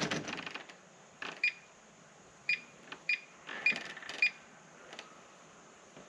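Buttons pressed on a Reliabilt keyless deadbolt's keypad: a sharp click at the start, then five short high beeps over about three seconds, one for each key press, with faint button clicks between them.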